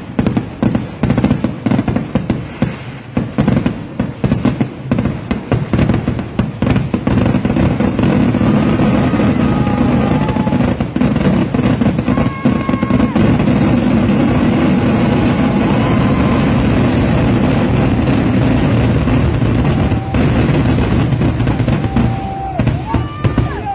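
Fireworks display: a rapid run of sharp bangs that merges, several seconds in, into a continuous barrage of explosions, then eases off near the end.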